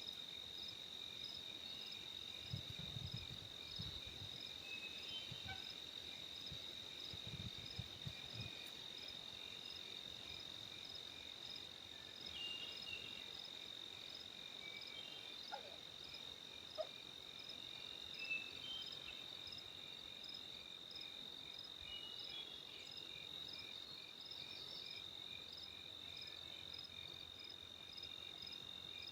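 Insect chorus, as of crickets: one steady high-pitched trill over a regular chirping pulse of about one chirp a second, with scattered short calls. There are a few faint low rumbles in the first third.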